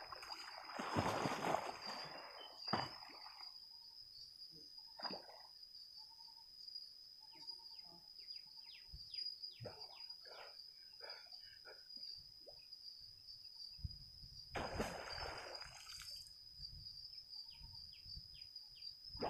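Water splashing and sloshing as a man wades through a flooded pond and ducks under, loudest about a second in and again about 15 s in, with faint drips and trickles in between.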